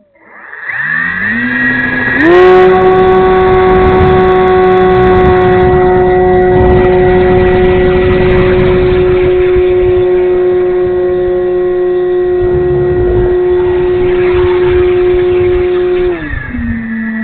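Electric brushless motor and propeller of an E-flite Timber RC plane spooling up from idle to full throttle, holding a steady high whine, then throttling back to a lower pitch near the end.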